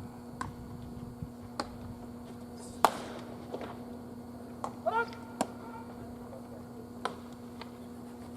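A sharp pop of a baseball smacking into a catcher's mitt about three seconds in, among several fainter scattered clicks, with a short shout about five seconds in.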